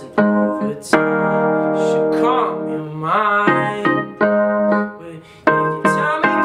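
Keyboard played with a piano sound: chords struck and held, with one long held chord about a second in and shorter chords changing every second or so after it.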